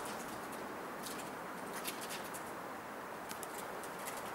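A small bird flying about in a concrete-block loft, heard as short high chirps scattered over a steady hiss.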